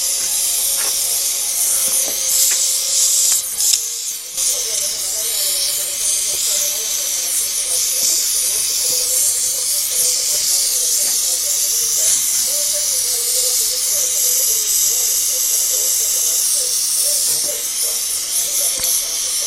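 Gas torch flame hissing steadily while it heats a metal rose red-hot.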